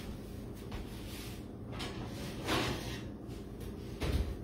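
Faint off-camera kitchen handling sounds: soft rustles and knocks, with a louder scrape about two and a half seconds in and a low thump near the end.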